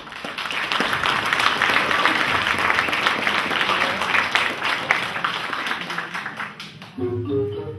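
Audience applauding: dense clapping that starts abruptly and dies away about seven seconds in, as music begins.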